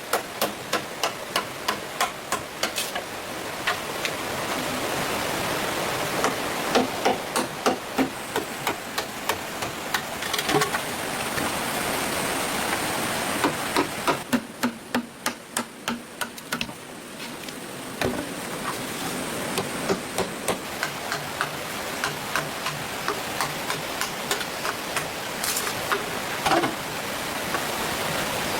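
A hand tool working wood: runs of quick knocks, about three or four a second, near the start and again about halfway through, with stretches of steady scraping between them.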